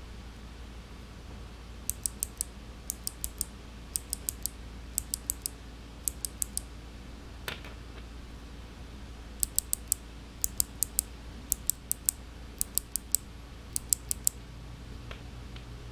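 Loose clicky mechanical keyboard switches being pressed and released by hand, giving sharp, high clicks in quick groups of three or four. The clicks come in two runs with a pause of about three seconds between.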